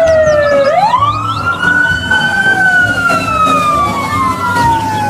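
Fire-engine siren wailing in slow sweeps. The pitch falls, climbs quickly under a second in, glides slowly down for about three seconds, then climbs again near the end.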